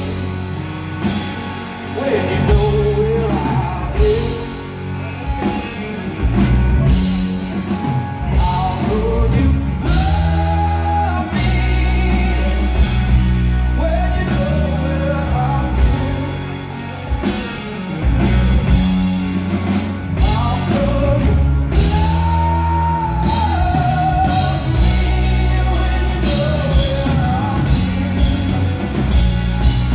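Rock band playing live: a male lead singer over electric guitar and drums, heard from the audience in a large venue.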